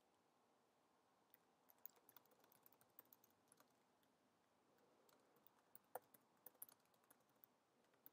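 Faint typing on a computer keyboard: two runs of quick key clicks with a short pause in between, as a file name is typed.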